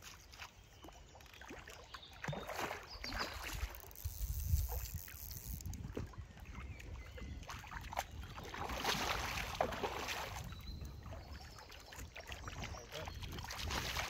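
A hooked carp splashing and thrashing at the water's surface close to the bank as it is played on a fly rod, in irregular bursts of splashing a few seconds apart.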